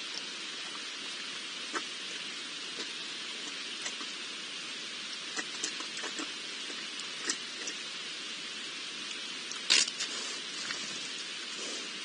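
Wild boar drinking and rooting at the edge of a pool: scattered small wet clicks and splashes over a steady hiss, with one louder splash about ten seconds in as it turns away.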